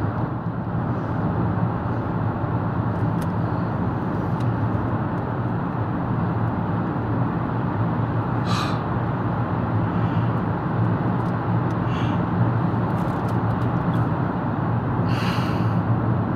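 Steady road and engine noise of a car driving through a road tunnel, heard from inside the cabin, with a constant low hum. Two brief higher-pitched sounds come about eight and fifteen seconds in.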